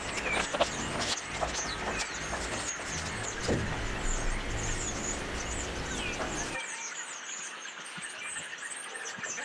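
Scissors snipping through folded paper, with short sharp cuts in the first few seconds. Small birds chirp high in the background throughout, and a low background hum stops abruptly about two-thirds of the way through.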